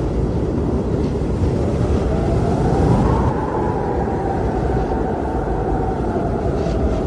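Blizzard wind blowing hard in a steady, deep rumble. A faint whistling howl rises about three seconds in and fades away near the end.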